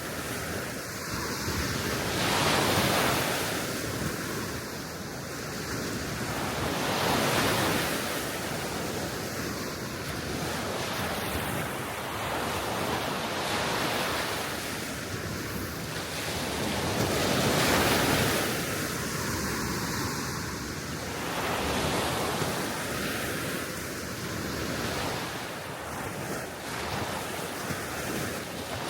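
Small waves breaking and washing on the shore in a steady rhythm, a swell of surf every two to three seconds, with wind rushing over the microphone.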